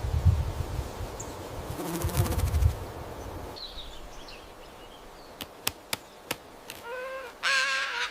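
A fly buzzing close by in irregular bursts, then a few sharp clicks, and a pitched animal call beginning about a second before the end.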